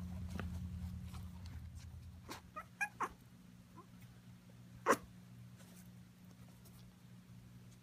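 Four-week-old Havanese puppies giving a few short, high yips and squeaks, faint at first, with a louder yelp about five seconds in.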